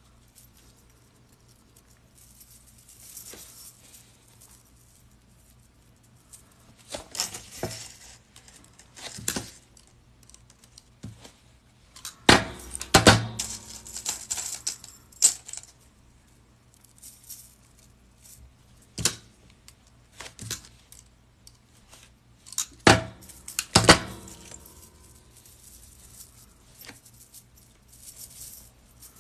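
Metal chainmail jump rings clinking and jingling as they are handled and linked into the weave, in scattered short bursts, loudest a little before halfway and again later on.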